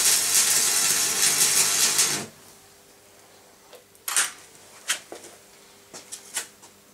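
Electric arc welding on steel: a dense crackling sizzle that cuts off suddenly about two seconds in, followed by a few sharp clicks and taps.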